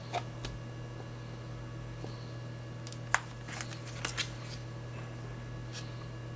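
Handling noise from two white Lenovo smartphones (A820 and P780) being moved about in the hands. Their plastic bodies give light clicks and rubs against each other and the fingers: one sharp click about three seconds in, then a short cluster of taps about a second later, over a steady low hum.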